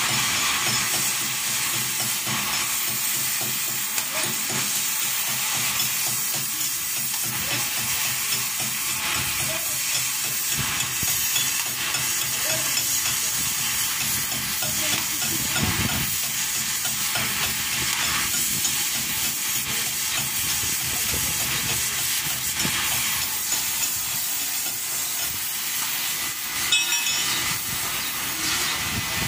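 Stick-welding arc on the steel teeth of a loader bucket, a steady crackling hiss.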